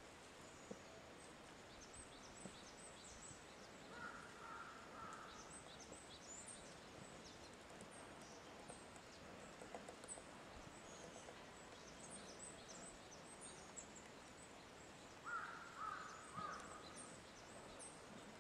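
Faint woodland birdsong: many short, high, thin chirps from small birds repeat throughout, with a louder, lower bird call about four seconds in and again, in three parts, near the end. No steady run of woodpecker pecking stands out.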